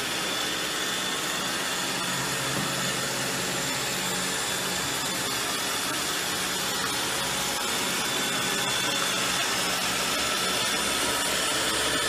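Robot vacuum cleaner running: a steady, even whir.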